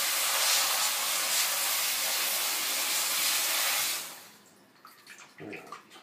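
Water spraying from a pull-out kitchen tap onto a parrot in a stainless steel sink, a steady hiss that cuts off about four seconds in as the tap is shut; then a few small splashes and drips.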